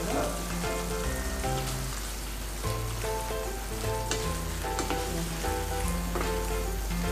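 Tomato pickle sizzling in a frying pan while a spatula stirs and scrapes through it, with occasional scrapes, under background music with held notes.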